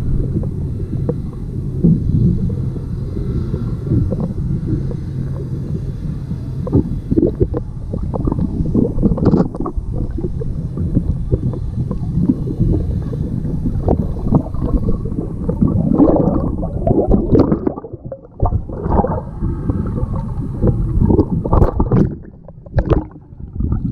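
Muffled underwater sound inside a GoPro's waterproof housing: a dense low rumble of moving water with many scattered knocks and bumps as large carp crowd and nudge the camera. The sound drops out briefly twice, near the end as the camera nears the surface.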